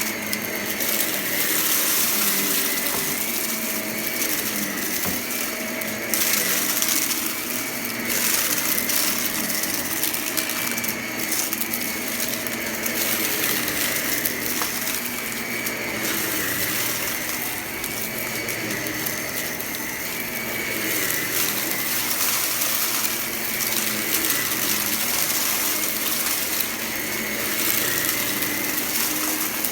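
Vacuum cleaner running steadily with a motor whine that wavers slightly in pitch, sucking up scattered crunchy debris that crackles and rattles through it, the noise swelling and easing every few seconds as it is pushed back and forth.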